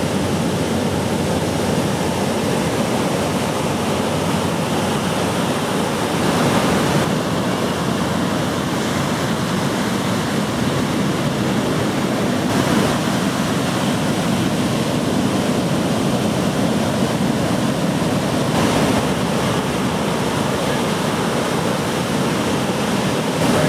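Ocean surf from a hurricane swell: a steady rushing noise of waves breaking, shifting a little in character a few times.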